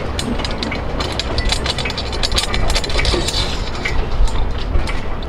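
Quick, irregular clicking and rattling of hardware handled at the end of an aluminium traveler track with bolts set in it, densest in the middle, over a low steady rumble.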